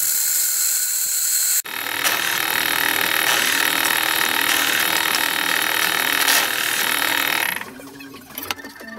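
Bench drill press running, its bit cutting through the cleaver's steel, a loud steady whir. It cuts off for an instant about a second and a half in, runs on, and drops away near the end.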